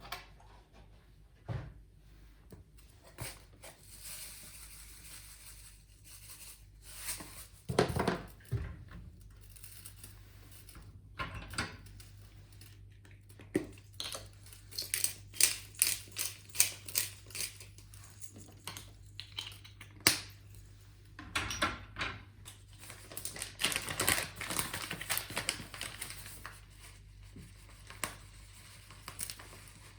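Kitchen work sounds: scattered knocks and clatter of utensils, with a quick run of evenly spaced knocks about halfway through, over a faint steady hum.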